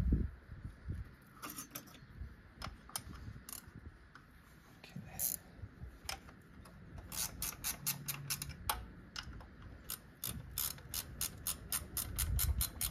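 Hand ratchet clicking as it is swung back and forth to run bolts down: a few scattered clicks at first, then a steady run of quick clicks from about seven seconds in. A single thump right at the start.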